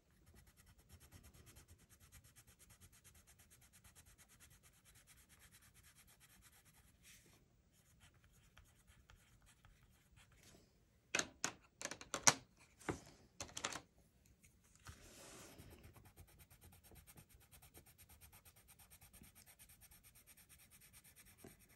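Mondo Llama colored pencil shading back and forth on paper, a soft, fast, steady scratching as a colour swatch is laid down. A few sharp, louder clicks come a little past halfway through.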